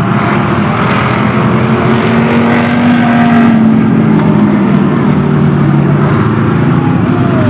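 Street stock race cars running at racing speed around an oval track, a steady loud engine din whose pitch rises and falls as the cars accelerate and pass through the turns.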